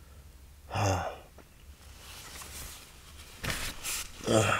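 A man making two short vocal sounds as he stretches on waking, about a second in and again near the end, with sleeping bag and tent fabric rustling between them.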